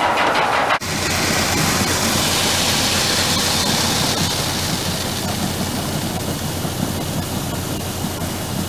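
Harvested barley pouring in a steady rushing stream into a grain auger's hopper, over the steady hum of the auger running. Just under a second in, a rhythmic machine sound cuts off abruptly and the pouring takes over.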